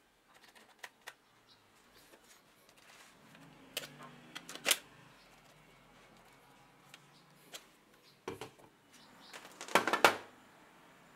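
Hard plastic clicks and knocks as an old DeWalt XRP 18V cordless drill and its battery charger are handled and set down on a work surface. There are scattered light clicks, a sharp knock about four and a half seconds in, and a cluster of louder knocks around ten seconds in.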